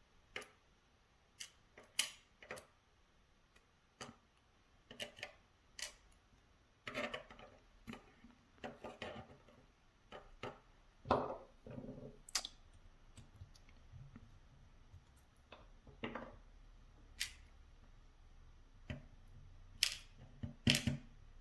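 Scattered, irregular light clicks and taps of small lock pins and parts being handled and sorted on a work surface, from a disassembled Medeco Biaxial lock.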